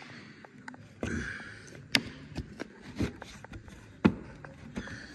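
Plastic lower grille trim on a BMW E39 front bumper being levered with a plastic trim tool: scattered clicks, knocks and short scrapes as the stubborn clips are worked loose, the sharpest knocks about two seconds in and about four seconds in.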